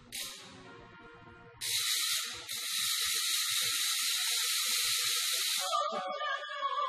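A loud, pitchless hiss, first a short burst that fades, then a steady one lasting about four seconds. It stops near the end as instruments start playing.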